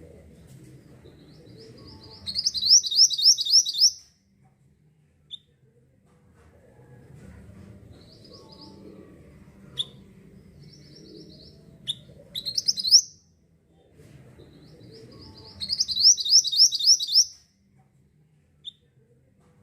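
Mantenan songbird singing in energetic bursts of rapid, high, repeated notes, three phrases in all, with single sharp chips in the gaps.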